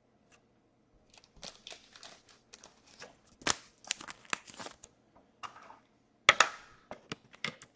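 Hockey cards and their plastic packaging being handled: a quick run of crinkles and light sharp clicks that begins about a second in, with a louder snap about six seconds in.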